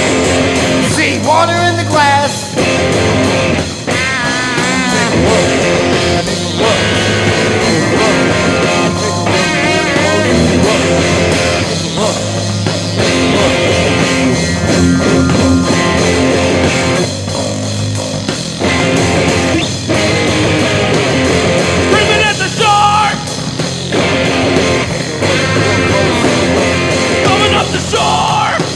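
Loud punk rock song: distorted electric guitars over drums, with wavering high guitar lines cutting in a few times.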